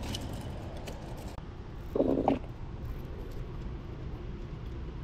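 Steady low rumble of wind on a body-worn camera's microphone, with one short muffled scuff about two seconds in as the wearer crouches and his clothing brushes the camera.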